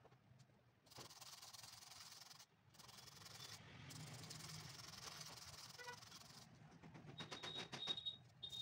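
Small stiff-bristled brush scrubbing the worn surface of a separated white sneaker sole: a faint, steady rasping in long stretches, turning into quick back-and-forth strokes near the end.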